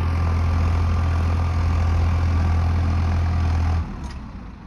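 Farmtrac 60 PowerMax 55 HP tractor's diesel engine running steadily under load, pulling a 13-tine tiller through sandy soil. Near the end the sound drops suddenly to a quieter level.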